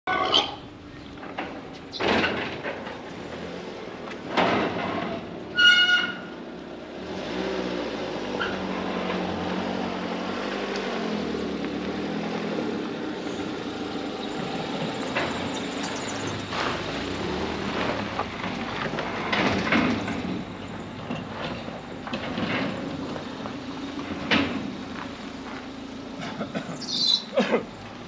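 Sheet-metal gate clanking a few times and giving a short squeal as it is swung open, then a car engine running steadily from about seven seconds in as the car drives slowly in, with a few more knocks later.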